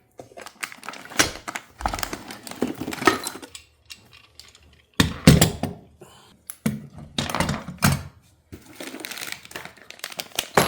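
Small metal parts of a TV wall mount kit (bolts, screws and spacers) being handled and set down: irregular clinks, rattles and knocks, with a heavier thump about five seconds in.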